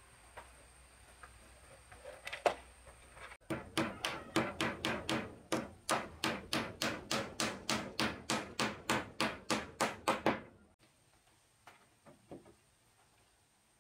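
A fast, even run of sharp knocks on wood, about three a second, for some seven seconds, starting and stopping abruptly, with a few single knocks before and after.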